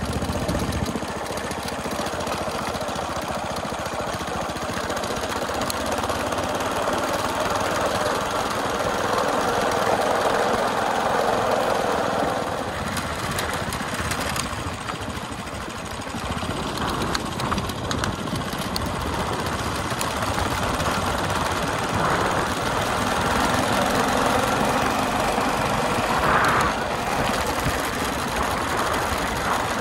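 Flathead Briggs & Stratton single-cylinder engine of a homemade belt-drive motorized bicycle running steadily under way.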